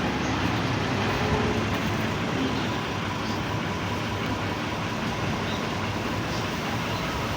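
Aircraft engine running steadily: an even rush of noise with a few faint steady whining tones, unchanging throughout.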